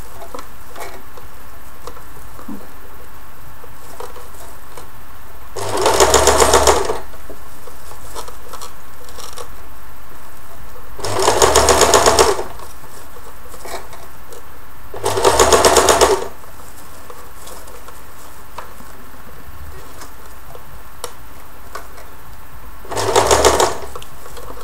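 Domestic electric sewing machine stitching a seam through organza in four short runs of about a second each, with pauses between them as the fabric is turned to follow the curve. A steady low background noise fills the gaps.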